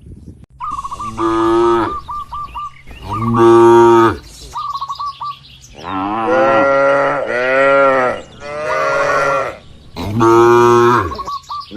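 Several cattle mooing in turn, about six long moos, some following straight on from one another. Short chirping trills sound between the moos.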